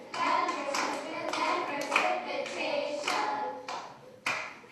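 Children singing a water-cycle song over rhythmic hand claps, about two claps a second, ending on the word 'precipitation' near the end.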